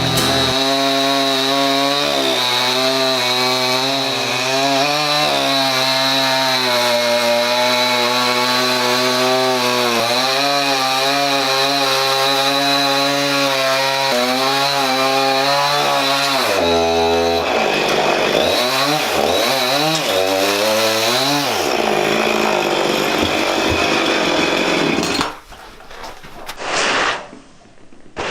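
Two-stroke chainsaw cutting down through the top of a large upright log to trim it to height. The engine tone wavers under load for about sixteen seconds, then revs rise and fall a few times before the engine stops. A few sharp knocks come near the end.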